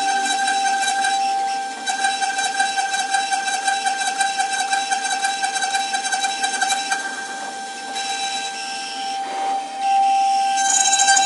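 CNC router spindle whining at a steady high pitch while its bit carves a wooden leg turning on the machine's rotary axis, with the hiss of the cut. The sound dips briefly a little way in and again near the end.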